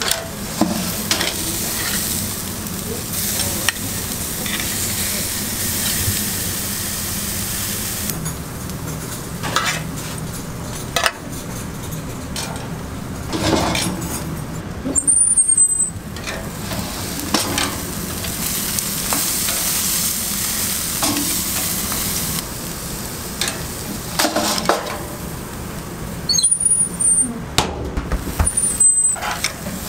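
Beef steaks sizzling on a charcoal grill, a steady hiss broken now and then by sharp clicks and scrapes of metal tongs and the grill's steel parts.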